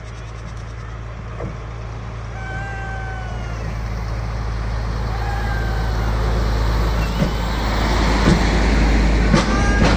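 Diesel locomotive approaching slowly on new track, a steady low engine rumble growing louder as it nears, with a few sharp knocks near the end as it comes alongside.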